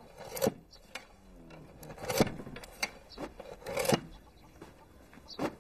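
A handful of sharp knocks and scrapes, about six, irregularly spaced, over a low background.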